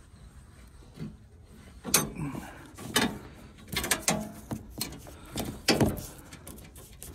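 Irregular metallic clicks and knocks from a hand wrench working the bolt on a sawmill crate's steel strapping, with cardboard packing being handled. The sharp clicks come about a second apart from about two seconds in.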